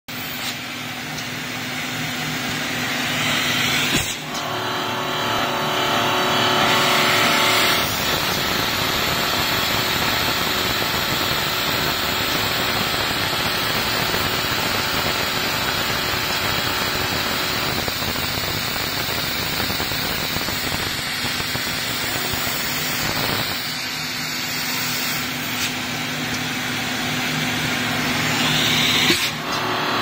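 Automatic buffing machine running, its rotating wheel polishing a stainless steel tea kettle pressed against it by a robot arm: a loud, steady rushing noise with a low hum under it, changing in character several times.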